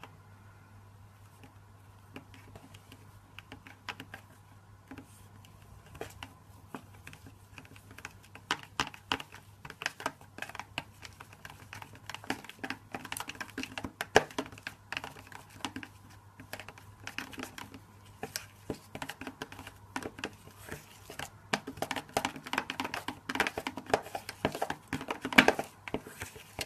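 Clear glitter slime being worked by hand, giving rapid sticky clicks and small pops. They start sparse and grow denser and louder from about eight seconds in, over a faint steady low hum.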